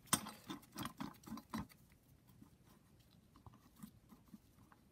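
Small metal clicks and knocks from the camshaft-holding jig being handled and set back onto a BMW N54 cylinder head: a quick run of sharp clicks in the first second and a half, then only faint, scattered ticks.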